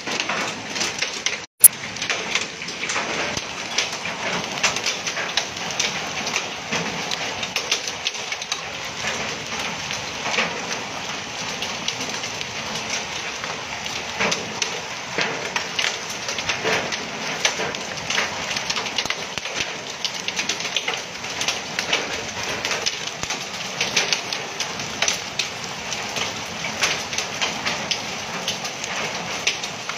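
Heavy rain mixed with hail pelting a paved street: a dense, steady hiss full of small sharp ticks. It breaks off for a moment about a second and a half in.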